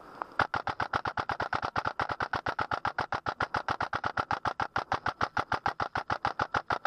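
Airsoft electric gun firing one long full-auto burst: an even, rapid string of shots lasting about six seconds, which stops just before the end.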